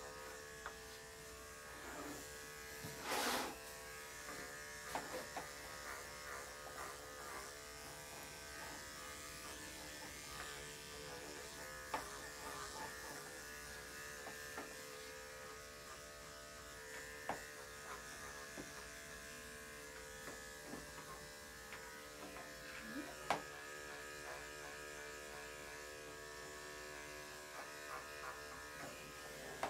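Corded electric dog grooming clipper with a #10 blade buzzing steadily as it shaves down a cocker spaniel's coat. A few brief sharp noises stand out above the buzz, the loudest about three seconds in and about twenty-three seconds in.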